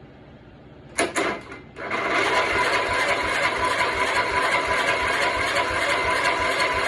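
Small lawnmower engine powering a go-kart, cranked over in a short burst about a second in, then catching and running steadily with a fast, even pulse.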